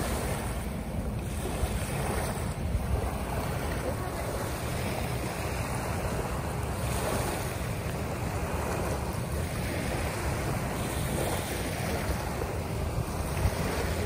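Small bay waves breaking and washing up onto a pebbly sand shore in a steady wash, with wind buffeting the microphone.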